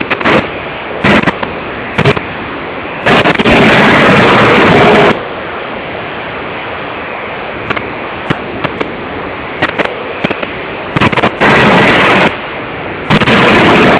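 CNC hydraulic die forging hammer at work: sharp, irregular blows of the ram on the die, with loud hissing bursts lasting up to about two seconds, over a steady machine noise.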